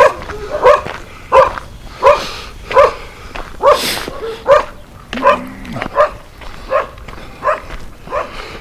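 A dog barking over and over at an even pace, about one bark every 0.7 seconds. It is the territorial barking of a dog at people walking past its yard.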